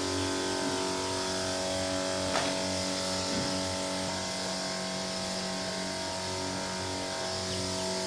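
Motorised backpack sprayer's pump humming steadily while disinfectant hisses out of the spray wand as a fine mist.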